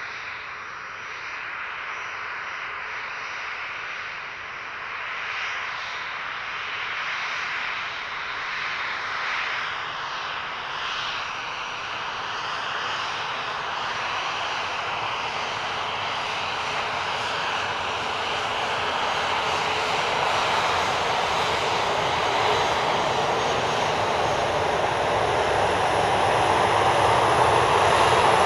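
Jet airplane engine rumble approaching, a steady rushing roar that grows gradually louder throughout.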